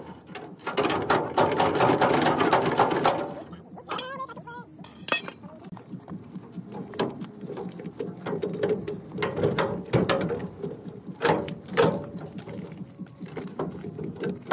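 Metal clattering and clicking from hand tools and parts being worked on: a dense run of rapid rattling clicks for the first few seconds, then scattered sharp metal knocks.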